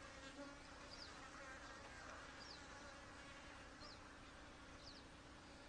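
Honey bees humming faintly and steadily from an open hive frame, with a short high chirp repeating about every second and a half.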